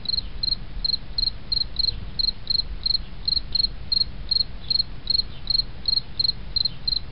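A cricket chirping in a steady rhythm, about three short chirps a second, over a low steady rumble, until the sound cuts off suddenly at the end.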